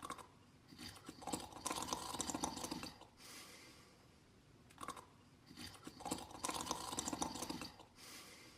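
Slow, regular snoring: two long snoring breaths about five seconds apart, each preceded by a short sound.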